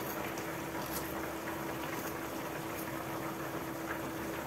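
Pot of wild asparagus simmering on a glass-ceramic hob: a steady low hiss with a faint steady hum. A few faint ticks come from a serrated knife slicing garlic cloves into a wooden mortar.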